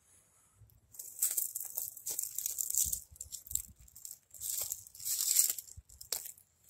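Footsteps crunching and rustling through dry leaf litter and grass, in a few spells of steps from about a second in.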